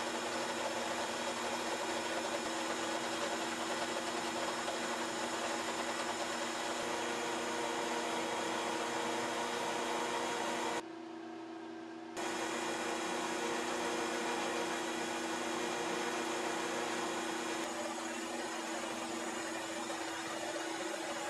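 Metal lathe running at steady speed while drilling and then boring out a cold-rolled steel bushing: a constant drive whine with the hiss of cutting. The sound drops briefly a little past halfway.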